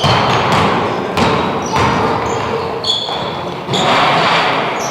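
Basketball game on an indoor court: the ball bouncing on the floor in a series of thuds, with a few short, high sneaker squeaks.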